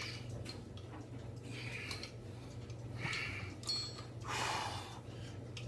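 A man's forceful breaths during weight curls: three sharp, noisy exhales, the last the longest and loudest, over a steady low hum.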